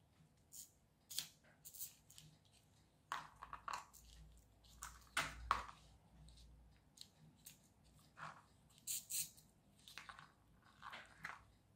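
Faint, irregular clicks and crunches of plastic clip-together kit pieces being unclipped and pulled apart by hand.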